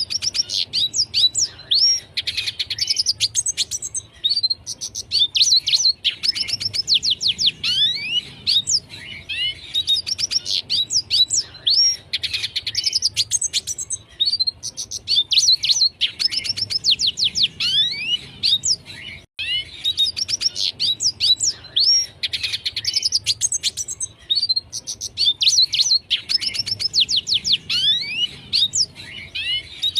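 Red siskin singing a long, continuous twittering song of quick chirps and downslurred notes, phrase after phrase with only brief gaps.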